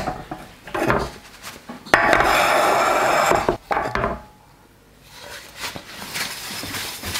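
Frying pan handled on an electric hot plate: a few knocks, then a loud rough scraping noise lasting about a second and a half that cuts off suddenly, followed by lighter rubbing.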